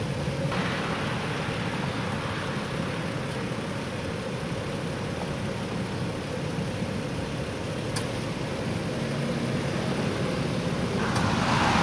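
Steady low hum of a vehicle engine idling, with a broad hiss building about a second before the end.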